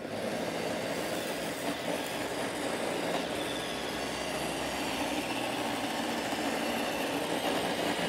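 An iRobot Roomba 535 robot vacuum running on carpet, its vacuum motor and brushes giving a steady whir as it works over scattered rice and sugar. Its Dirt Detect has tripped, so it is spot-cleaning the dirty patch.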